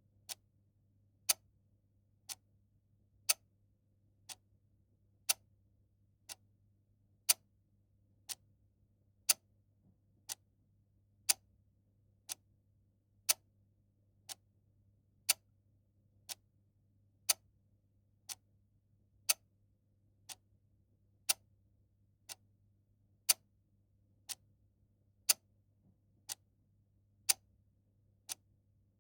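Clock ticking once a second, with the ticks alternating louder and softer in a tick-tock pattern. A faint steady low hum runs underneath.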